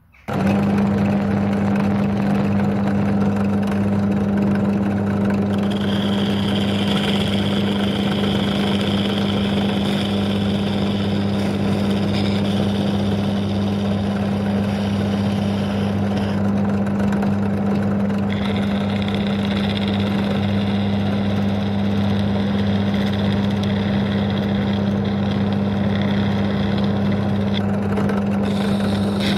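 Pedestal drill motor switching on and running with a steady hum, spinning a motorbike exhaust valve in its chuck. An old chisel held against the spinning valve head scrapes off the carbon build-up, adding a high-pitched scraping sound in two long stretches, from about five seconds in until shortly before the end.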